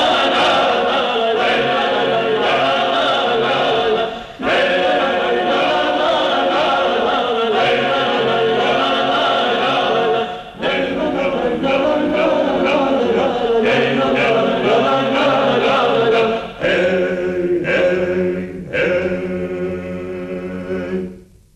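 A choir singing long sustained phrases, with brief breaks about four, ten and seventeen seconds in, then fading out at the end.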